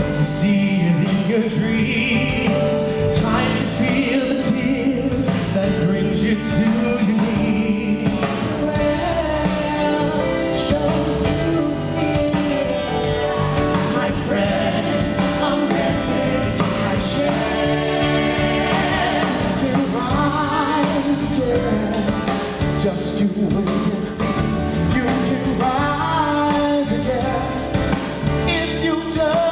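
Live band performing a song: a male lead vocalist with female backing singers over keyboard and acoustic guitar.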